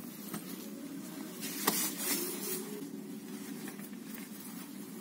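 Rustling and handling noise of a phone moving against a leather jacket, with a sharp click a little over a second and a half in, over a steady low background hum.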